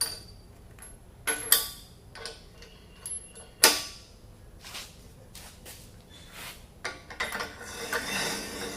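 Metal puller parts being handled and fitted together: a series of separate clicks and knocks, one louder clack in the middle, and a short stretch of scraping and rustling near the end.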